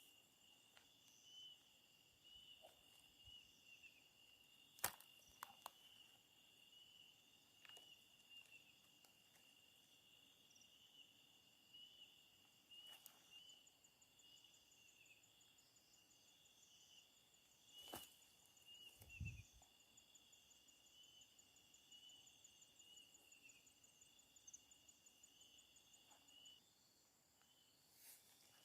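Faint insect chorus: a steady high trilling, joined about halfway through by a second, faster pulsing trill that stops a couple of seconds before the end. A few faint clicks and a low thump two-thirds of the way in.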